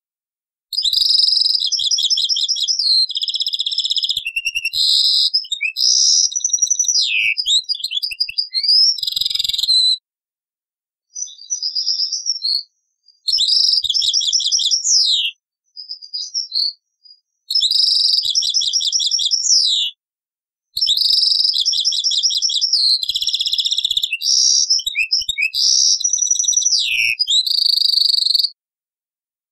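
European goldfinch song copied from an old cassette: long phrases of fast twittering trills, buzzy notes and quick downward-sliding notes, broken by several short pauses.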